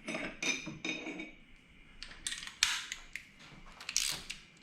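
Metallic clinks and taps of a steel Allen key against the handlebar riser clamp bolts as it is seated and turned, in a few short clusters with pauses between.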